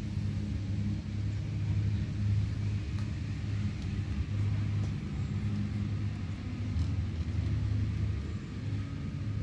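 A steady low engine hum, like a vehicle running, holding an even pitch.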